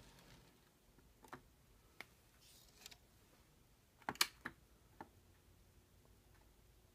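A few small, sharp clicks against near quiet, with a quick cluster of three louder clicks about four seconds in.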